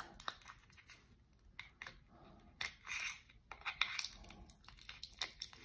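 Scattered light clicks and taps of a thin flat-blade screwdriver prying a glued two-cell battery pack out of its plastic battery housing, with short scrapes about halfway through and again a second later.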